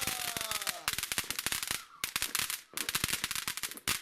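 Golden Oriole fountain firework burning with a dense stream of rapid crackles and pops, broken by two brief lulls around the middle.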